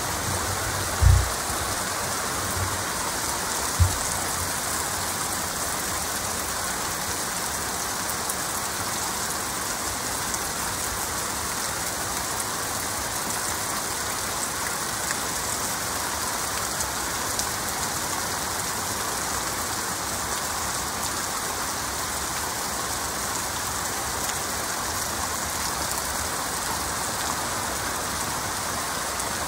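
Heavy rain falling steadily as an even hiss of drops. Two short, low thumps come in the first few seconds.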